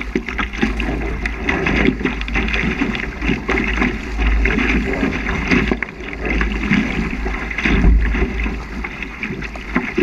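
Water rushing and splashing along the hull of a small sailing dinghy sailing fast through choppy water, with spray coming over the bow. Wind buffets the microphone with a gusty, irregular rumble underneath.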